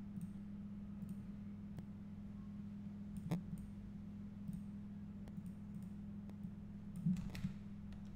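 Scattered clicks of a computer mouse and keyboard while working at a computer, two of them sharper about three and seven seconds in, over a steady low electrical hum.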